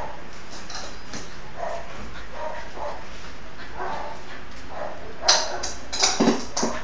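Chow Chow dog barking in play: faint short sounds at first, then several loud, sharp barks in the last two seconds.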